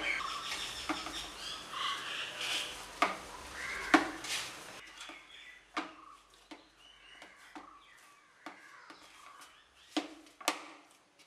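Hands kneading soft dough in a plastic bowl: scattered soft pats and squishes, with a few sharper knocks of the hands or bowl.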